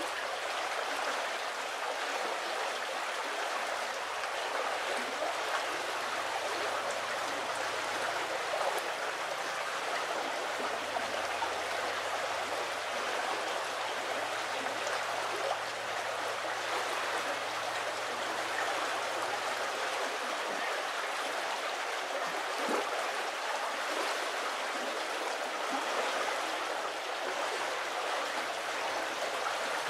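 Shallow river running, a steady, even sound of flowing water.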